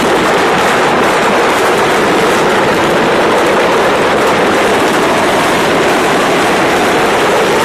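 A pile of Diwali firecrackers stored together burning at once, setting each other off in a continuous, dense crackle of rapid pops with no let-up.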